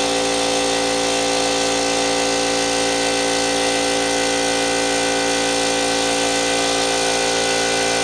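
Pneumatic impact wrench running free with the trigger held, a steady whine over loud air hiss, drawing on a 20-gallon air compressor's tank to test its runtime.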